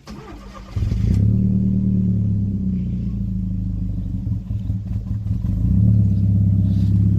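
Audi A3 turbo's engine being cranked and catching less than a second in, then idling steadily, rising a little near the end.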